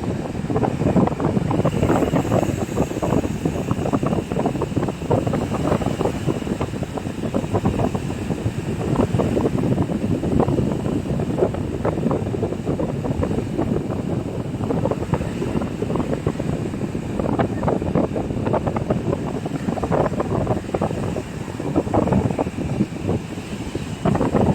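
Wind buffeting the microphone in rough, uneven gusts over the wash of sea waves on the shore.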